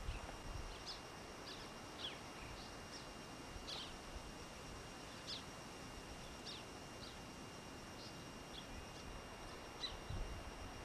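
Faint bird calls: short, high chirps repeated irregularly, roughly one or two a second, over a thin steady high tone.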